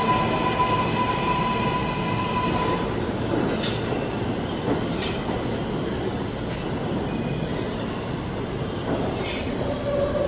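New York City Subway L train of R143 cars rolling slowly along the platform of an underground station. A steady high wheel squeal in the first few seconds sits over the running noise, with a few clunks as the wheels pass over rail joints.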